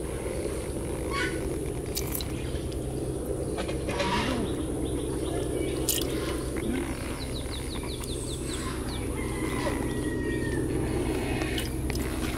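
Outdoor ambience: a steady low rumble with faint bird calls over it, including a quick run of chirps past the middle and a short whistle a little later, and a few light clicks.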